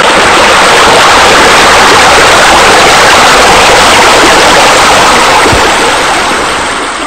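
Steady, loud rush of running water, fading out near the end.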